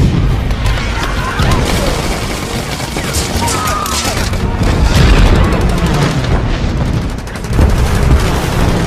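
War-film soundtrack of an air raid: a continuous roar of explosions and gunfire, with heavy booms and rapid strikes throughout.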